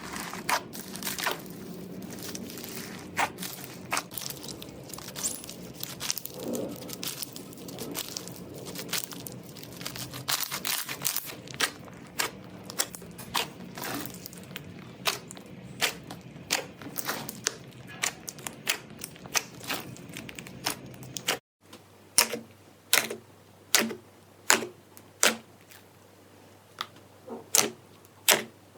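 Slime being pressed and poked by hand, giving many sharp crackling clicks and pops. After a cut about two-thirds of the way through, the clicks come louder and more evenly spaced, one or two a second.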